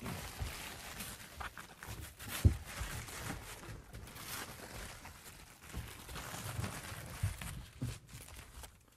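Plastic vapour-control membrane rustling and crinkling as it is handled and laid into place, with scattered light knocks and one sharper knock about two and a half seconds in.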